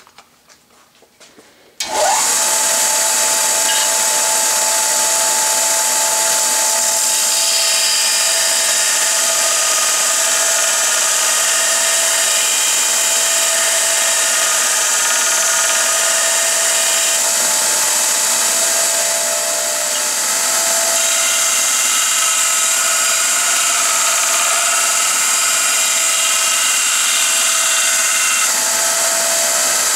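A Baldor 2×48-inch belt sander-grinder starts about two seconds in and runs steadily, with a soft-steel lathe threading tool held in a jig being ground against the abrasive belt. The sound is a loud, even grinding hiss over a steady motor hum, briefly easing just before two-thirds of the way through.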